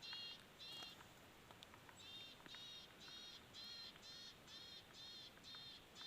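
A bird calling: a short, high note repeated about twice a second, two notes, a pause of about a second, then a steady series.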